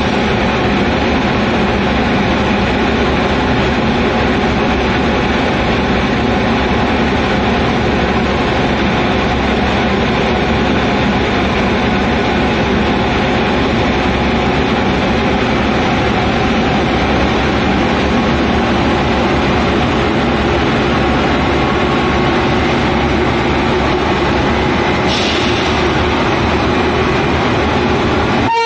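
Electric locomotives rolling slowly past at close range, making a steady, loud running noise. A hiss joins about 25 seconds in.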